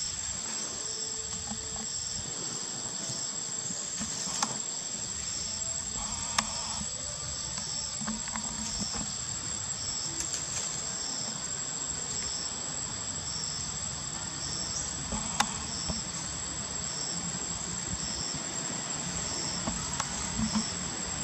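Insects droning steadily in the forest: a continuous high-pitched buzz, with a second insect chirping in a regular pulse. A few sharp clicks stand out now and then.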